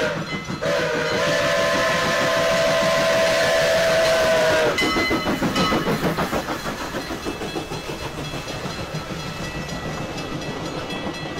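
Steam locomotive's chime whistle blowing: the tail of one blast, then a long blast of about four seconds. The whistle then stops and the locomotive and its passenger cars pass close by with a rhythmic pulsing rumble of wheels on the rails.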